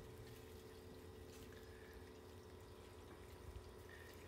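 Near silence: room tone with a steady low hum and a few faint ticks.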